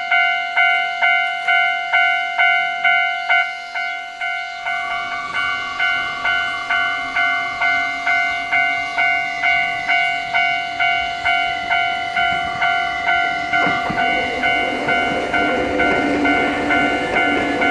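Japanese level-crossing warning bell ringing in a fast, even rhythm of about two and a half strikes a second. A Nankai Koya Line train's running noise joins about four seconds in and grows much louder near the end as it comes through.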